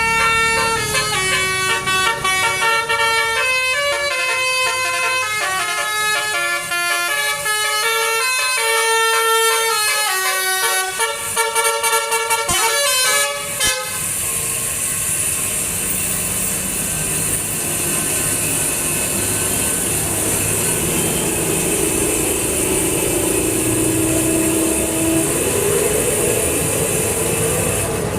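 A tour bus's multi-tone telolet horn playing a quick stepping melody of chimed notes. About fourteen seconds in the tune stops abruptly and a steady rushing noise with a low drone takes over.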